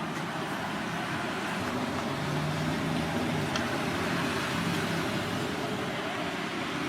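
Steady ambient rumble and hiss like road traffic, with no clear single event.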